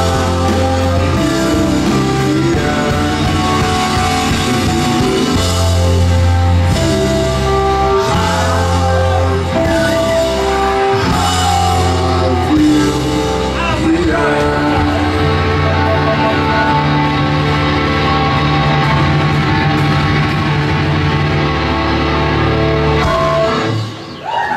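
A live rock band playing, with held instrumental notes over a bass line and some singing. The sound dips briefly near the end.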